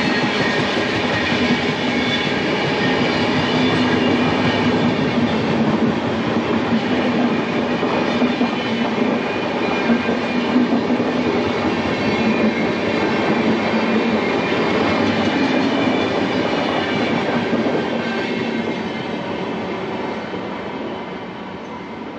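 Passenger coaches of an Indian Railways express train, double-decker cars among them, rolling past at speed with a steady rumble of wheels on rail. The sound fades over the last few seconds as the end of the train goes by.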